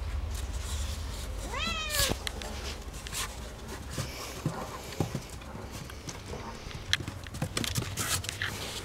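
A cat gives one drawn-out meow about a second and a half in, its pitch rising and then falling, while a puppy wrestles on top of it. Scattered light knocks and scuffles on the wooden deck follow.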